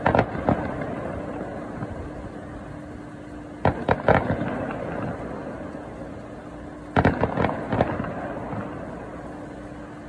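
Aerial fireworks bursting: three volleys of several sharp bangs, about three and a half seconds apart, each dying away over a couple of seconds. A faint steady hum runs underneath.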